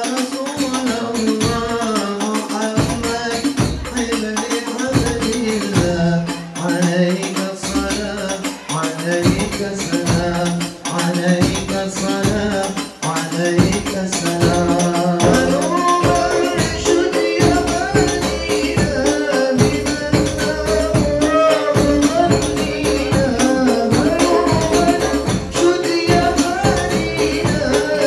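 Male voices singing a sholawat, an Arabic devotional song, in a slow melodic line with long held notes, over hand percussion; about halfway in the drumming grows into a steady, denser rhythm with jingling frame drums.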